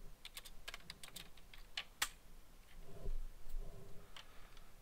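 Typing on a computer keyboard: a quick run of key clicks, ending in one louder keystroke about two seconds in, followed by a couple of soft low thumps.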